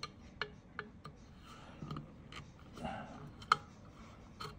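Flat-blade screwdriver working out a small screw that holds a vintage aneroid barometer's movement in its case: light scattered clicks and ticks of the tip on the screw and metal, with one sharper click about three and a half seconds in.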